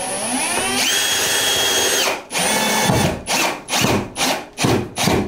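Power drill spinning up with a rising whine, running steadily for about a second and stopping, then run in a quick string of short trigger bursts as it drives in a screw.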